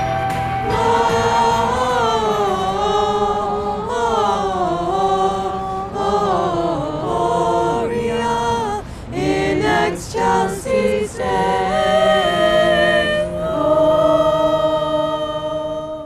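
A small group of Christmas carolers, mostly women, singing a carol together, ending on a long held chord.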